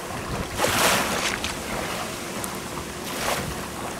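Choppy river water splashing and rushing along the hull of a traditional Tejo sailing canoe under way, with wind buffeting the microphone. Louder surges of spray come about a second in and again past three seconds.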